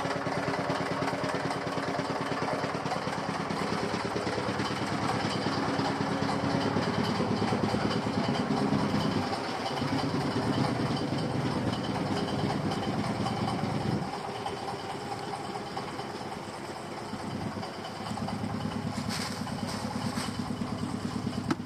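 Small engine of a fish-grinding machine running steadily, quieter from about fourteen seconds in. Near the end, a brief rustle as ground fish and bran mash is poured onto a plastic tarp.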